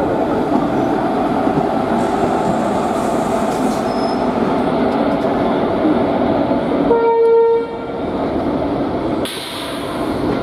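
Indian Railways WAG-7 electric locomotive running past at close range, a steady rumble of wheels on rail. About seven seconds in, a single short horn blast sounds.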